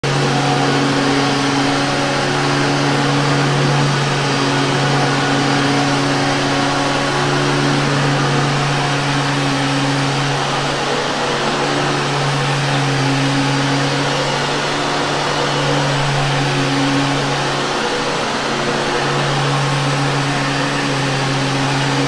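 Vintage Hoover Caddy upright vacuum cleaner running on carpet: a steady motor hum with rushing suction noise, the hum dipping briefly a couple of times as the vacuum is pushed and pulled across the floor.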